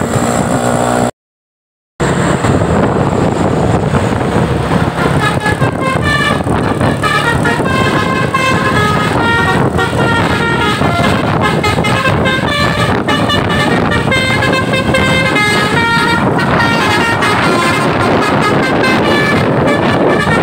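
Bus multi-tone 'telolet' musical horn playing a quick tune of rapidly changing notes over road and engine noise. The tune starts about five seconds in, after a brief dropout of the sound about a second in.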